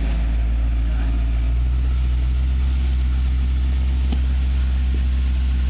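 1976 Ford Bronco's engine running steadily at low revs, a deep even rumble, with a single click about four seconds in.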